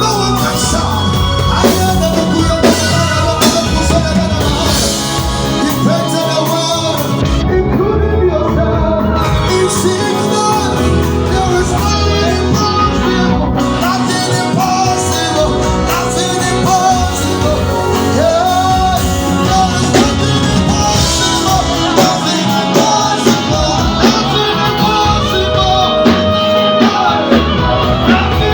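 Loud music with singing and a steady bass beat, played over a PA sound system during a sound check.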